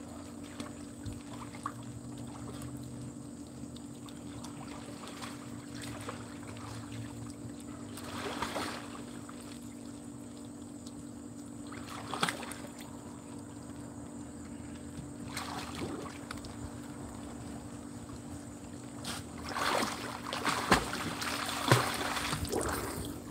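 Pool water splashing as a swimmer strokes and kicks: a few scattered splashes, then a denser run of louder kicking splashes near the end. A steady low hum runs underneath.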